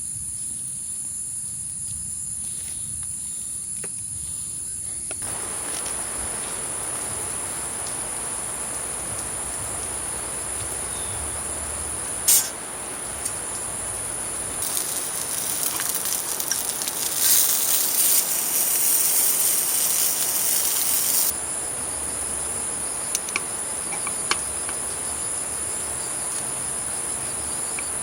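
Steady, high-pitched chorus of crickets chirping. A hiss joins it about five seconds in and swells louder for several seconds in the middle, and there is a sharp click a little before halfway.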